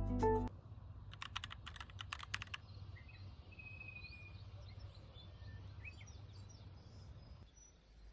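A quick run of light clicks for about a second and a half, then faint, scattered bird chirps over a steady low hum.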